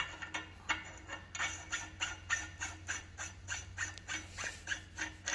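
A steel bearing-retaining nut being screwed by hand onto the threaded end of a Ford F350 rear axle housing tube, giving a steady run of light metallic clicks, about four a second.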